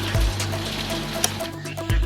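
Background music with held bass notes and a low beat.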